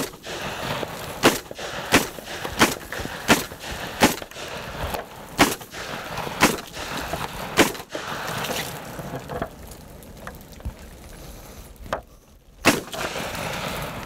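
MKA 1919 AR-style 12-gauge semi-automatic shotgun fired in quick succession, about nine shots in the first eight seconds, roughly one every 0.7 s. One more shot follows after a pause of about four seconds.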